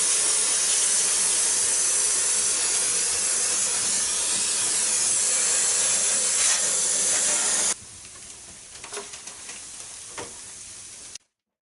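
Cleaning spray hissing steadily as it is sprayed onto the air-conditioner indoor unit. It stops abruptly, and a few faint clicks and taps follow.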